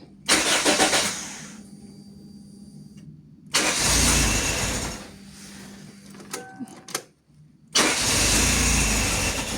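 Toyota 5E-FE four-cylinder engine, assembled without a head gasket, being started in three short bursts, each lasting a second or so and falling away in between.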